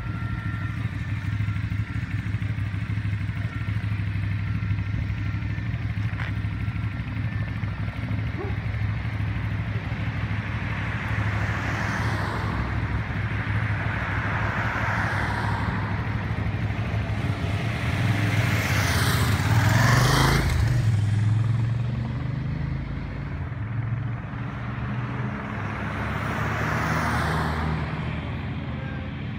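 Escort motorcycles and cars driving past one after another over a steady engine hum. Four pass-bys swell and fade, the loudest with a falling pitch about twenty seconds in.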